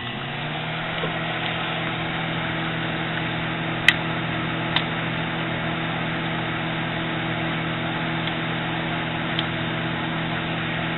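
Microwave oven running with a steady hum. A sharp click comes about four seconds in, with two fainter ticks later.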